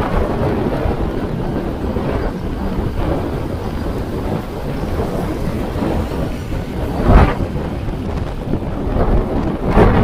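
Wind buffeting the action camera's microphone on a moving bicycle: a steady low rumble that swells in sharp gusts about seven seconds in and again near the end.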